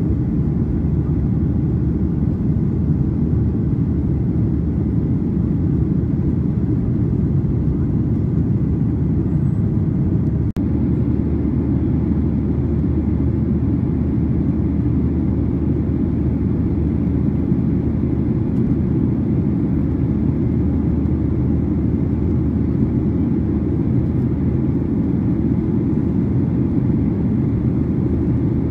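Steady low rumble of engine and airflow noise inside the cabin of a Boeing 737-800, with one very brief dip about ten seconds in.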